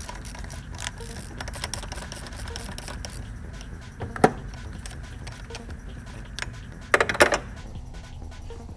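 Ratchet wrench clicking in quick strokes as it turns a fastener on the engine, then a single sharp metallic knock about four seconds in and a brief clatter of metal tools or parts near the end.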